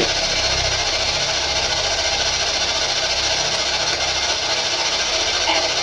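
Steady electronic hiss of static, with a low uneven rumbling hum beneath it.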